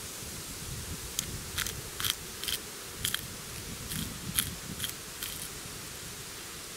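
Hand spice mill being twisted over a steak to season it: about ten crisp crunching clicks over four seconds, irregularly spaced, the loudest about four and a half seconds in.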